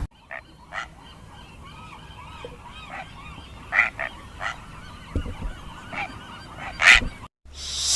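A flock of birds calling: a string of short, sharp calls over many fainter calls behind them, cut off abruptly near the end.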